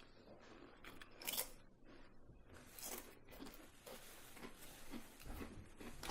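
Ruffles Flamin' Hot potato chips being bitten and chewed, faint crunches coming every second or so, the loudest about a second in.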